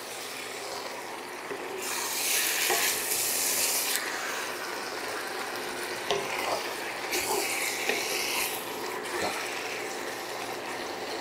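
Wide rice noodles and vegetables stirred and tossed in a hot nonstick wok with a wooden spatula and tongs: a steady sizzle with scraping and light clicks of the utensils against the pan. It grows louder twice for a second or two as the food is turned.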